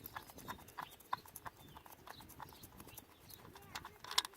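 Light, irregular clicks and clinks, a few a second, of a socket wrench working the 13 mm bolts of a truck's front hub cap, with a louder click near the end.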